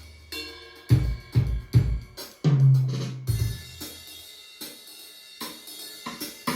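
Roland V-Drums electronic drum kit playing its drum sounds. A quick run of four hits comes about a second in, then a deep, held low drum note, then a few sparser and quieter strikes.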